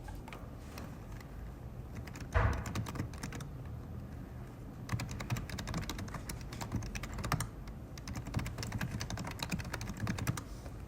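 Typing on a computer keyboard: runs of quick key clicks, with a louder thump a little over two seconds in.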